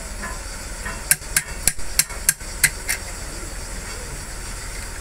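About seven quick, sharp metal-on-metal taps over roughly two seconds, from hand work at the crankshaft and main bearing caps of a six-cylinder diesel engine block.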